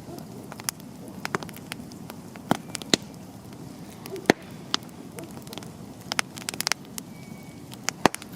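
Wood campfire crackling, with irregular sharp pops from the burning logs over a low steady hiss of the flames.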